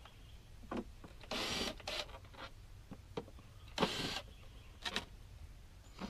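Cordless drill whirring in short bursts, about a second and a half in and again near four seconds, backing screws out of a plastic drain catch basin. Light clicks and knocks of the plastic parts fall between the bursts.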